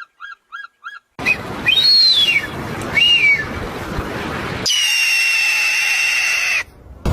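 Animal calls: a run of short evenly spaced chirps, about three a second, then two arched whistled calls that rise and fall over a steady noisy background, then one long level whistle lasting about two seconds.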